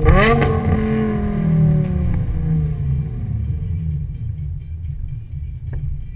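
Car engine blipped hard at the start, the revs rising sharply and then falling away over a couple of seconds as the car slows, over a steady low engine rumble.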